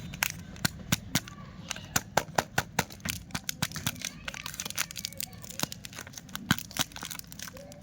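Plastic candy packaging crinkling and crackling as it is handled and opened, a quick irregular run of sharp crackles several times a second.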